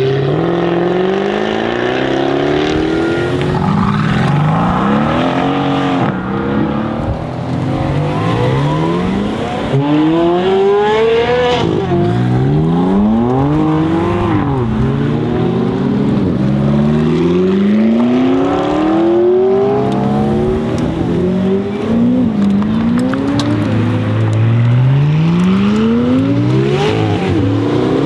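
Jaguar F-Type V8 R Coupe's 5.0-litre supercharged V8 accelerating hard, repeatedly and loudly. The engine note climbs steeply through each gear, then falls back at each shift or lift-off, many times over.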